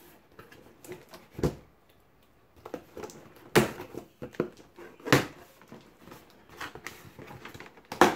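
A cardboard shipping box being opened by hand: the packing tape along the seam is slit and the flaps are pulled back, giving a string of sharp cardboard scrapes and knocks with rustling between them.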